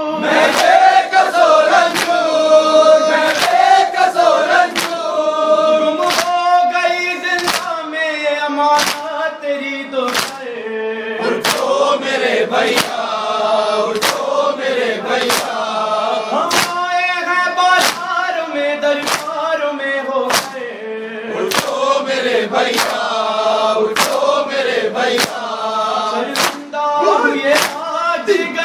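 A male reciter chanting an Urdu noha lament, with a group of voices singing along in chorus, over rhythmic matam: hands striking chests in an even beat of about one strike a second.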